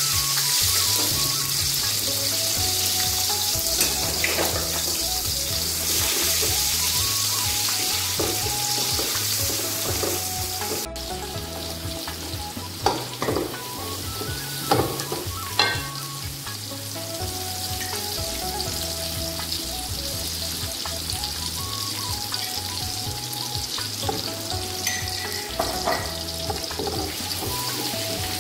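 Sliced onions sizzling in hot oil in a metal pot, stirred with a wooden spoon that knocks against the pot a few times midway. The sizzle is strongest at first and quieter in the second half.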